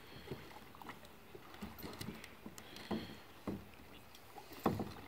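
Light patter of water dripping off a person who has just climbed back into a plastic sit-on-top kayak, with scattered small knocks as he shifts against the hull.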